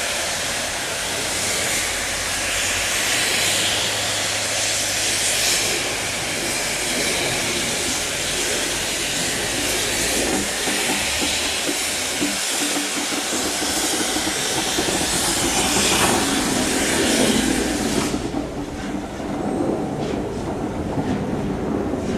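Steam locomotive and train running, with a loud steady hiss of steam over the rumble of the train. About four seconds before the end the hiss stops suddenly, leaving the rumble and clatter of the wheels on the rails.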